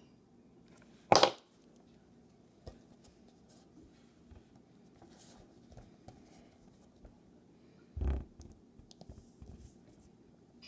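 Small scratching and clicking from hand tools being worked, a stiff wire hook and pliers, with one sharp, loud knock about a second in and a duller thump about eight seconds in.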